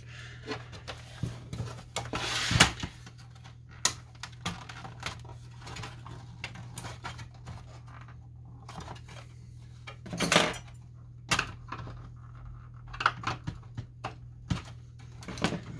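Lexmark Pro915 inkjet printer being taken apart by hand: scattered clicks, knocks and rattles of its plastic housing and parts, loudest about two and a half seconds in and again around ten seconds in, over a steady low hum.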